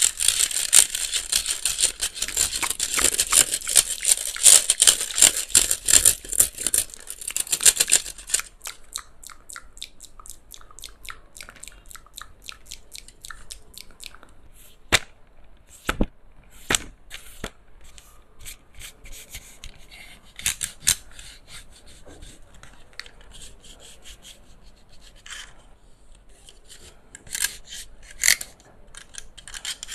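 Close-up ASMR scratching and rubbing on the plastic body of a handheld electric fan for about eight seconds, then slower scattered taps and clicks. The fan's motor is not running.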